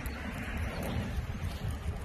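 Wind buffeting the microphone, a steady uneven low rumble.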